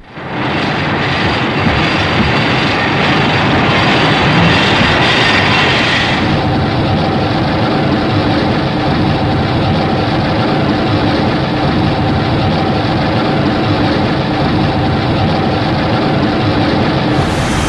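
Long, loud, steady rushing noise with a low rumble, a film monster sound effect. Its hiss dulls about six seconds in and brightens again near the end.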